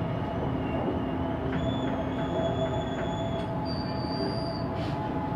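Siemens Inspiro metro train running at speed, heard from inside the car: a steady rumble with high squealing tones that jump up in pitch about one and a half and three and a half seconds in, and cut off near five seconds.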